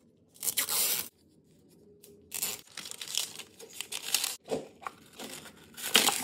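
Crinkly plastic wrap being torn and peeled off a toy ball in several bursts of tearing and crinkling, with a few small clicks and a louder crackle near the end.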